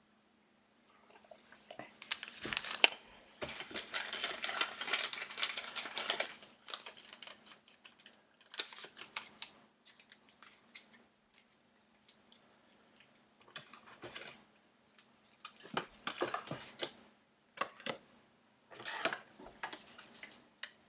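Trading cards and their plastic packaging being handled: bursts of rustling, crinkling and quick clicking, the longest from about two to six seconds in, then several shorter bursts, over a faint steady hum.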